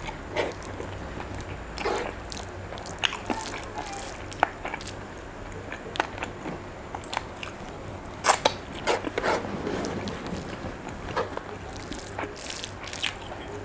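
Chewing and wet mouth sounds of someone eating a mouthful of food by hand, with irregular sharp clicks and smacks. Sticky squelches come from fingers mixing rice with saucy sambal and rendang.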